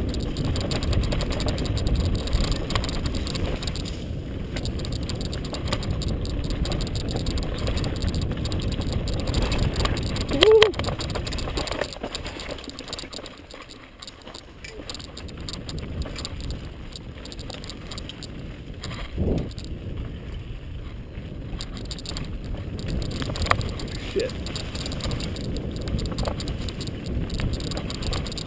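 Mountain bike rattling down a dirt singletrack, with wind rumbling on a helmet-mounted camera's microphone. There is a short loud knock with a brief tone about ten seconds in. The noise drops for a few seconds after that, then picks up again with scattered clicks and knocks.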